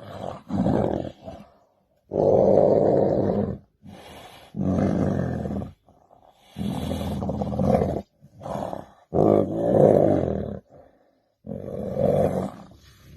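A large wild animal giving a series of loud, deep calls, each about a second long, with short pauses between them.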